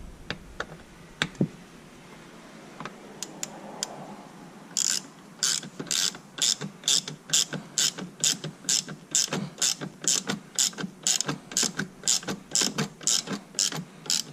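Hand ratchet wrench clicking in an even rhythm, about two to three strokes a second, as mounting bolts are run in. A few scattered clicks and knocks come before it; the steady ratcheting starts about five seconds in.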